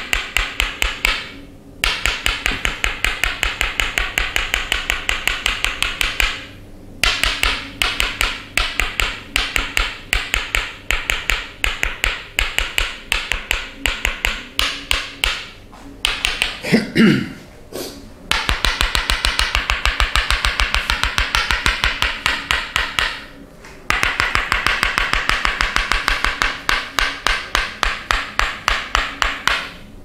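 Tok sen massage: a wooden mallet rapidly tapping a wooden wedge held against a person's back, giving fast runs of sharp wooden clicks broken by short pauses. About seventeen seconds in, a brief falling sound rises above the tapping.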